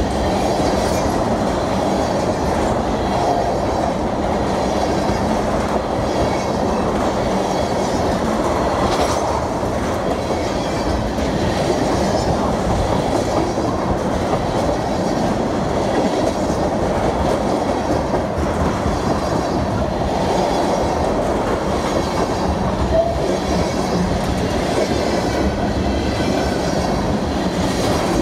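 A train's cars rolling past: steady noise of steel wheels on rail, with occasional faint clicks over the track.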